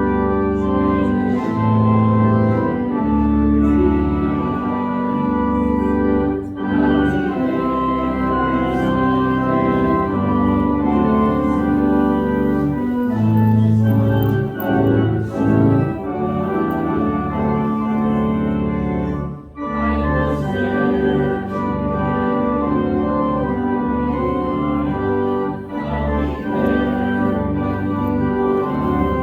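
Organ playing sustained, slowly changing chords, with short breaks between phrases about six and twenty seconds in.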